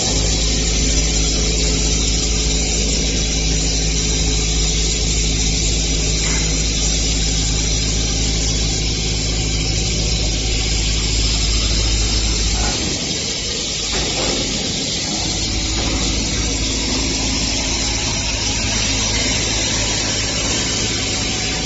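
CNC machine running while machining a steel die for a pipe-elbow press: a steady deep machine hum with a constant hiss over it. About 13 seconds in, the deep hum drops away briefly and comes back at a different pitch.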